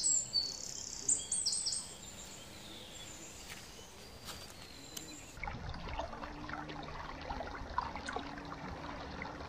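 Outdoor countryside ambience: a small bird chirping in quick repeated notes for about the first two seconds, then a quiet stretch. About five seconds in, the background switches to a steadier low rumble with faint ticking and trickling of river water.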